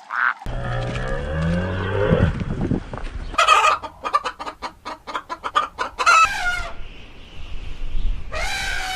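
Chickens clucking: a fast run of short clucks with several longer, higher squawking calls between them. A low, wavering sound fills the first two seconds.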